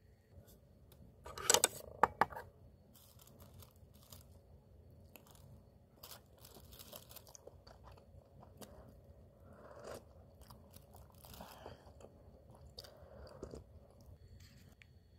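Thin plastic bag crinkling and rustling as it is handled and pulled open over a bowl. The loudest crinkles come in a quick cluster about one and a half to two seconds in, followed by softer, irregular rustling.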